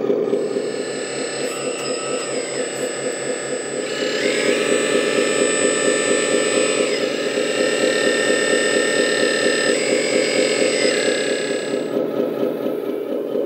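Hydraulic pump of a LESU 8x8 RC truck running steadily, with a higher whine that comes in three times as the hydraulic crane is worked, gliding up in pitch as it starts and down as it stops, loudest from about four to seven seconds in.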